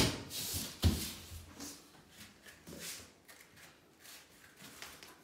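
Foam alphabet puzzle mat pieces being handled: two soft knocks in the first second, then faint light taps and rubbing as a letter piece is pushed into its slot in the mat.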